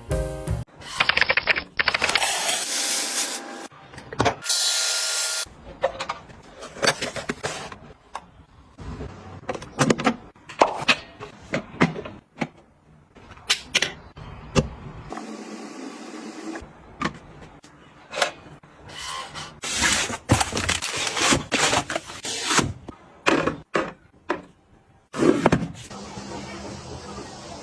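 Hands handling and setting down items: a string of irregular clicks, taps and knocks, mixed with several rustling, hissing swishes of a second or so each.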